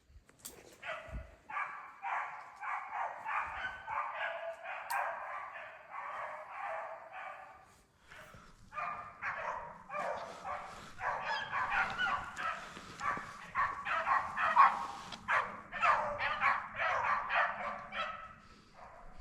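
Beagles baying in quick, repeated barks, as hounds do when running a rabbit's track; the calls break off briefly about eight seconds in, then come back louder.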